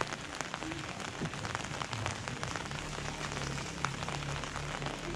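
Light rain falling on an umbrella overhead, a steady hiss dotted with many small sharp drop taps. A low steady hum comes in about two seconds in.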